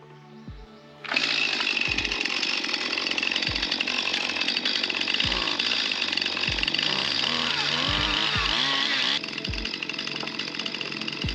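A large petrol chainsaw comes in suddenly about a second in and runs loud, its pitch wavering as it is revved near the end, then drops to a lower level. Background music with a regular low beat runs underneath.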